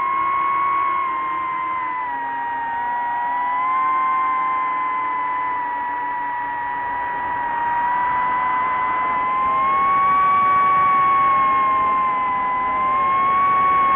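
DJI FPV drone's motors and propellers whining steadily in flight, the pitch sinking and rising a little as the throttle changes, highest about two-thirds of the way through and again near the end.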